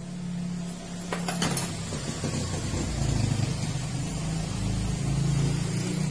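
A motor vehicle engine running steadily, growing louder over the first second, with a few light clicks about a second in.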